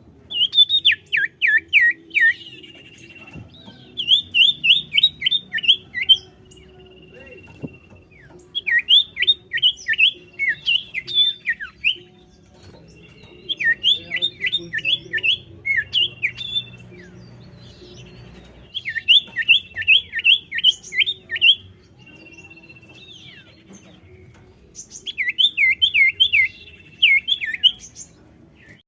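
Common iora singing: six repeated phrases, each a quick run of six to eight downward-sweeping whistled notes ending in a short level whistle, one phrase every four to five seconds.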